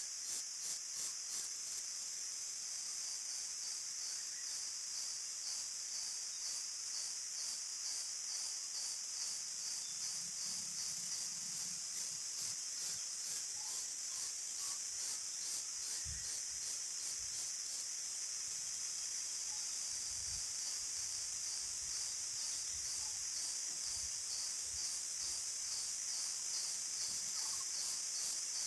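A steady, high-pitched insect chorus with a fast, even pulse.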